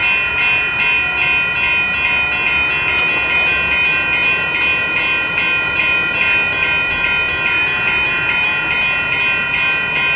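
Railroad grade-crossing warning bell ringing in steady, even strokes, about two and a half a second, as the crossing gates come down: the warning that a train is approaching.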